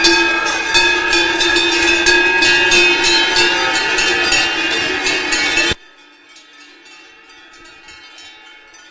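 Large cowbells on a herd of passing cows clanging together in a dense, continuous ringing with frequent loud strikes. The sound cuts off suddenly about two-thirds of the way through, leaving only faint ringing.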